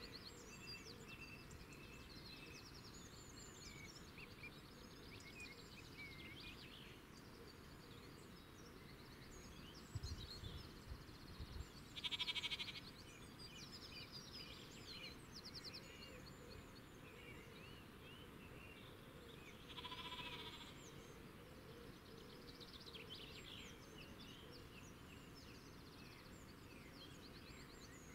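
Faint countryside ambience of small birds chirping and twittering. Two louder, short buzzy calls stand out about twelve and twenty seconds in, and a few low thumps come around ten to twelve seconds in.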